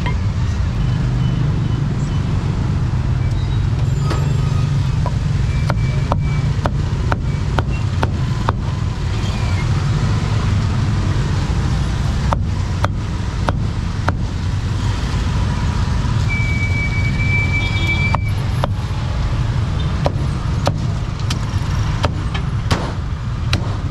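Steady low rumble of street traffic, with runs of sharp knocks every half second or so.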